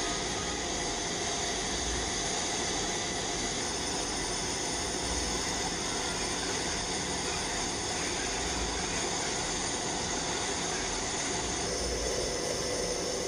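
Steady rushing noise of a jet aircraft running on a flightline, with faint steady whines over the hiss; a lower whine joins near the end.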